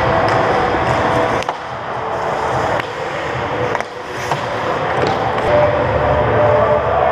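Ice hockey skate blades scraping and carving on the ice, with four sharp clacks of sticks, puck and pads spread through.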